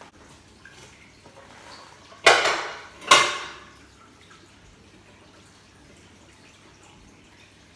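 A frying pan and a round plate clanking together twice, about a second apart, each knock ringing briefly: the pan being turned over onto the plate to turn out the potato cake.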